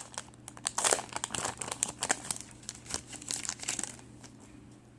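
Trading card pack wrapper crinkling as cards are handled, in a run of irregular sharp crackles that stops about four seconds in.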